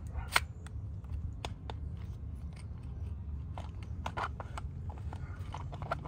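Scattered clicks and clacks from a WRX manual shifter assembly's plastic and metal parts being worked apart by hand while a piece is slid out of the housing. A sharp click comes about a third of a second in and a few lighter ones follow, over a low steady background rumble.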